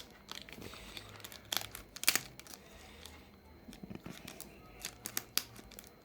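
Packaging of a small box being cut open and handled: irregular crinkling and sharp crackly clicks, the loudest about two seconds in.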